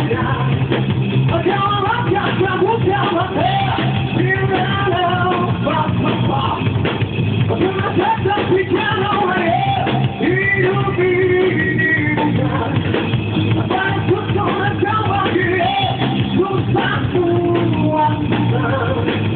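Live rock band playing: a singer over guitar and drum kit.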